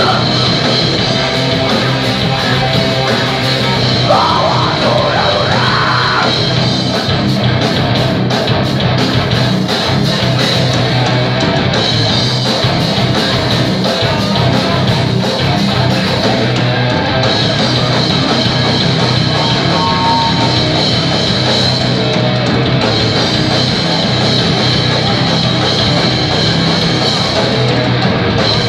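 Heavy metal band playing live: electric guitars and drum kit with vocals. The song stops right at the end.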